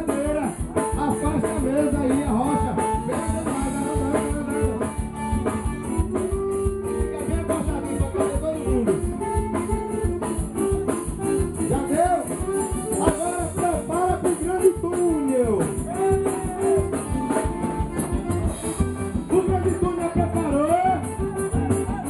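Live forró band playing a quadrilha tune: accordion melody over bass guitar and a steady shaker beat, with a voice singing at times.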